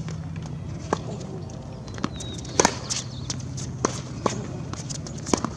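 Tennis balls being struck by rackets and bouncing on the court: about six sharp pops at uneven intervals, over a steady low hum.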